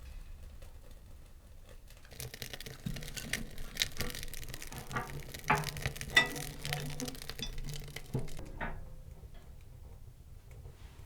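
A quick run of light clicks, taps and knocks, starting about two seconds in and stopping near the end, over a faint hiss.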